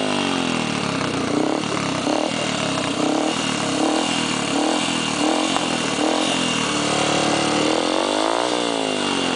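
Yamaha XTZ 125's single-cylinder four-stroke engine revved through an aftermarket aluminium exhaust: a run of quick throttle blips, about one every three-quarters of a second, then a longer rev that rises and falls near the end.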